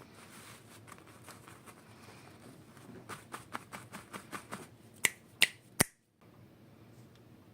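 Small plastic toy parts being handled: a run of light clicks, then three sharp, louder clicks in quick succession about two-thirds of the way in.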